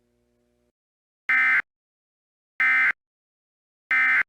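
Emergency Alert System end-of-message data signal: three short, identical bursts of harsh, buzzy digital warbling about a second apart, marking the end of the relayed required monthly test.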